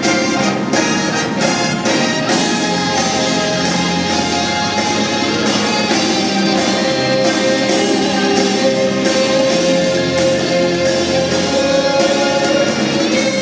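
Live instrumental rock played on amplified cellos with an orchestra backing them, the full ensemble sounding at a steady level with no breaks.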